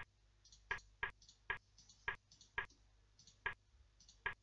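Computer mouse button clicked about eight times at an uneven pace, each a short sharp click, stepping chess software back through a game's moves.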